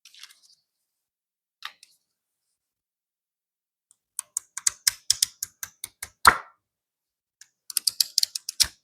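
Handling of art-kit packaging and items: two quick runs of sharp clicks and taps, with one louder knock about six seconds in.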